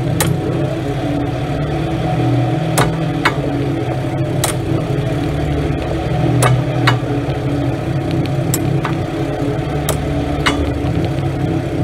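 A 1999 Mercedes S320's straight-six engine idling steadily, with sharp clicks or knocks every second or so at irregular intervals.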